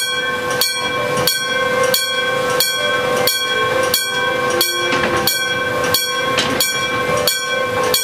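Miniature railroad crossing signal's electronic bell ringing its steady "kan-kan" warning, about three strikes every two seconds, while the red lamps flash.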